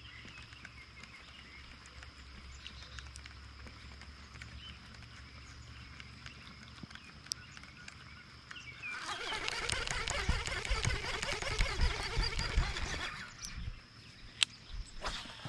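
Quiet outdoor background with a steady high-pitched whine and a few faint ticks. About nine seconds in, a louder rattling, whirring noise with low bumps runs for about four seconds and then stops.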